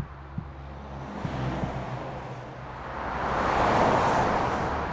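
Street traffic: a vehicle passes, its noise swelling to a peak about four seconds in and then easing off.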